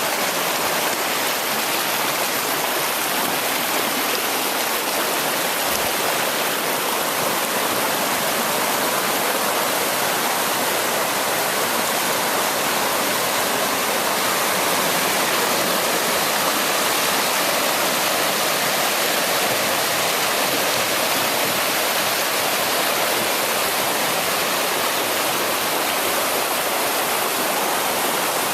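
Water rushing steadily over a rocky waterfall, a continuous even roar with no breaks.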